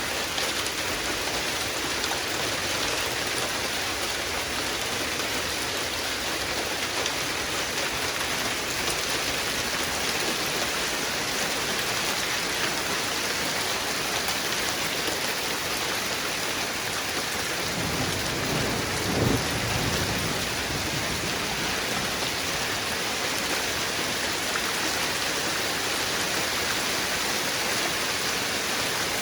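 Thunderstorm downpour falling steadily in a dense, even hiss, with a low rumble of thunder swelling for a couple of seconds about eighteen seconds in.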